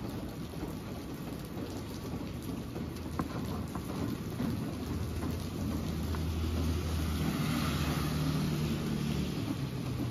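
Steady rain falling on a wet street and pavement, with scattered small drip ticks. Over the second half a low hum and hiss swell up, loudest near the end, then fade.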